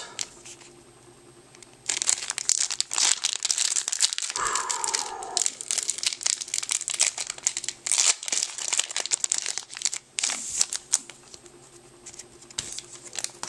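Shiny foil wrapper of a Yu-Gi-Oh! booster pack crinkling and being torn open by hand. The crackling starts about two seconds in and runs on as a dense string of crinkles and small rips.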